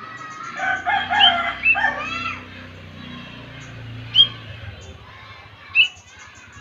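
Sumatran cucak jenggot, a bulbul, singing: a loud run of warbled, sliding whistled phrases for about two seconds, followed by two short, sharp upward notes a second and a half apart.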